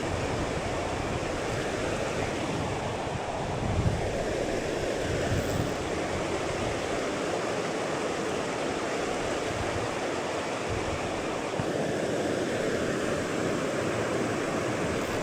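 Steady rush of a river's flowing current, an even wash of water noise.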